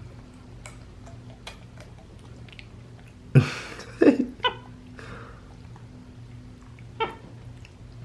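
Black-capped capuchin monkey giving a few short pitched calls, a loud cluster about three and a half seconds in and one more near the end, amid small clicks and taps, over a steady low hum.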